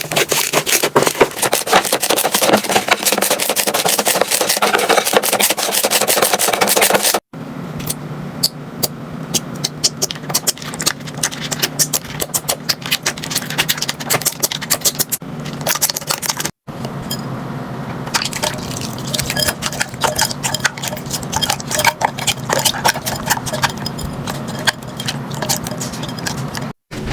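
Slime being squeezed and worked by hand, giving dense sticky crackling and popping. Three separate clips follow one another, each breaking off abruptly at a cut.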